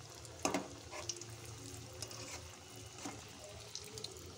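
Pakoras deep-frying in hot oil in a metal kadai, a steady sizzle, with a few knocks of a metal spatula against the pan as they are turned, the loudest about half a second in.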